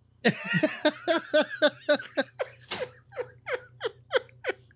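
Men laughing hard: a dense burst of laughter, then a run of short falling 'ha' pulses, about three a second.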